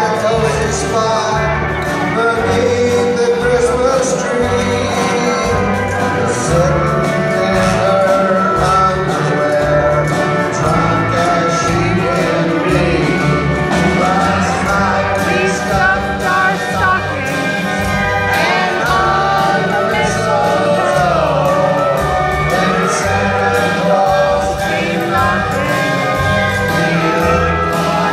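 Live country band playing and singing with acoustic guitars, fiddle, upright bass and drums, heard from the audience in a large concert hall.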